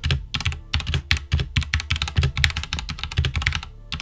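Fast typing on a Redragon K552 mechanical keyboard with red switches: a rapid, uneven run of key clicks, the keycaps bottoming out against its metal plate, with a brief pause near the end.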